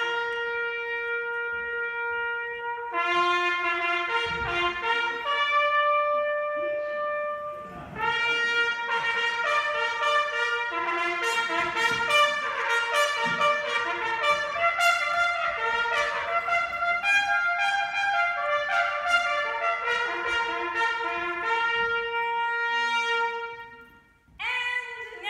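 Brass instruments led by a trumpet playing long held notes, joined about eight seconds in by more horns in a fuller, busier passage. The music stops shortly before the end.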